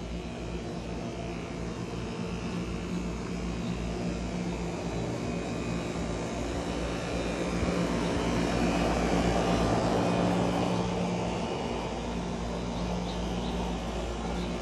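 Outdoor air-conditioner condenser unit running: a steady hum under an even fan rush, which grows louder about eight seconds in and eases off again a few seconds later.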